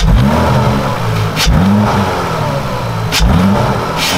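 Car engine revved in about three short blips, its pitch rising and falling each time, with sharp cracks between the blips.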